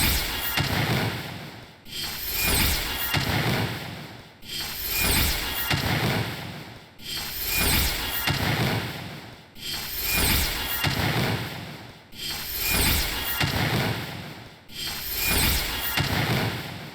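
A short noisy sound effect played on a loop: each pass swells up, fades away and then starts again abruptly, about every two and a half seconds.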